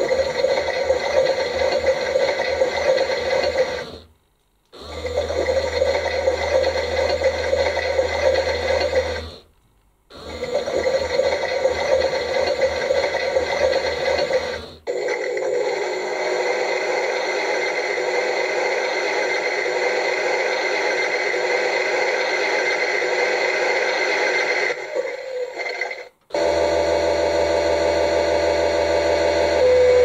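Bosch-branded toy washing machine running an empty demonstration cycle: its drum runs for about five seconds at a time with short silent pauses. About fifteen seconds in, the sound changes to a steadier whir for about ten seconds, then the start-stop running resumes.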